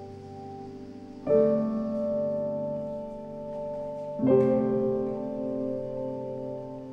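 Background music of slow piano chords, a new chord struck about a second in and another about four seconds in, each left ringing.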